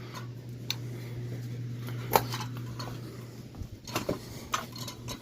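Metal parts of a ceiling fan clinking and knocking as it is broken apart: a few separate sharp knocks, the loudest about two seconds in, over a steady low hum that fades out past the middle.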